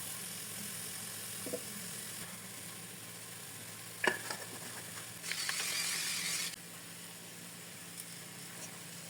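Food sizzling in a frying pan, with a clink from a utensil about four seconds in and a louder spell of hissing for about a second past the middle.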